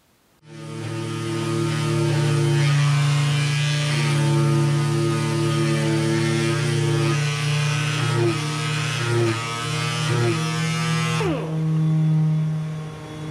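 Air-driven (pneumatic) sander running with coarse 60–80 grit paper against teak gunwale wood, a steady mechanical hum under a gritty hiss. About eleven seconds in the sanding stops and the tool's pitch falls as it winds down, leaving a steady hum.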